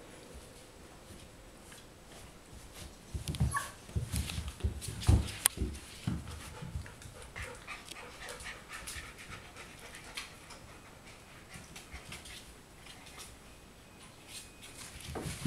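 Four-week-old golden retriever puppies panting and scuffling, with a cluster of soft thumps and knocks about three to six seconds in.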